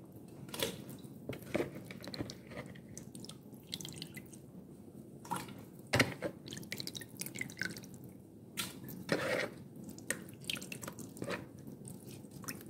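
Raw goat meat being handled in a basin of water: small splashes, drips and knocks at irregular intervals, the sharpest about six seconds in.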